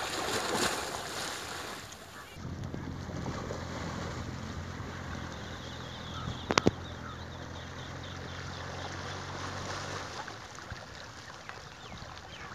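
Fast river current washing against an eroding earth bank, with wind buffeting the microphone. A steady low hum runs from about two seconds in until about ten seconds in, and there is one sharp knock about six and a half seconds in.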